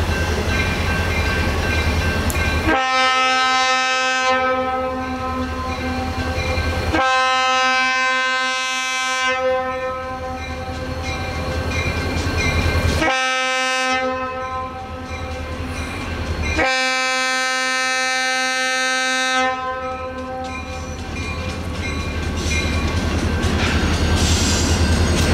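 Horn of EMD GP40 diesel locomotive MEC 305 sounding four blasts in the grade-crossing pattern, long, long, short, long, to warn a road crossing. Between and after the blasts the approaching train's rumble grows louder, with wheel clatter near the end.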